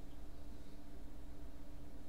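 Steady low background hum with a constant tone in it; nothing else happens.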